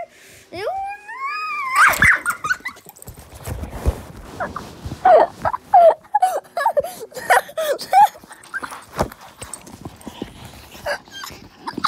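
Dog whining, one long rising whine about a second in, then a run of short whines and yips mixed with scattered clicks and knocks.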